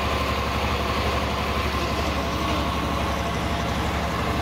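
An engine running steadily, a low, even hum with no change in speed.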